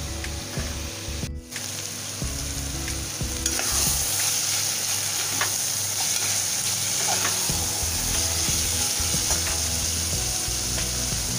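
Chickpeas frying in spiced masala in a pan, sizzling while a steel spoon stirs them and clicks against the pan. The sizzle grows louder about a third of the way in.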